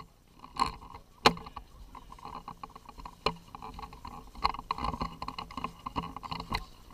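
Footsteps and gear moving in snow, rough and uneven, with about five sharp knocks; the loudest is about a second in.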